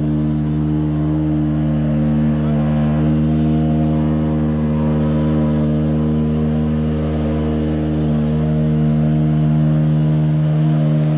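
Ferrari P80/C's twin-turbo V8 idling steadily at an even pitch.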